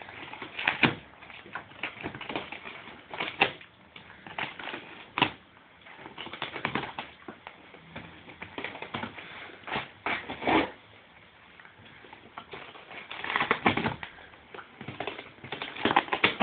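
A dog tearing at a cardboard box with its teeth: irregular ripping and crunching of cardboard, in bursts every second or two with short quiet gaps between them.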